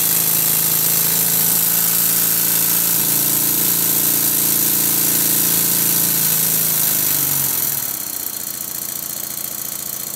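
Stuart Double 10V twin-cylinder model steam engine running briskly on compressed air: a steady even hum from the exhaust beats with a strong hiss of air. About eight seconds in the pitch sinks a little and it runs on more quietly. Valve admission is late on one side of the engine, though it barely affects the running.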